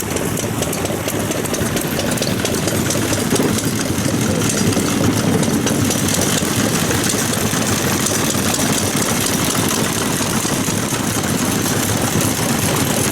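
Old single-cylinder stationary farm engine (hatsudōki) running steadily with a rapid, even knocking, running well.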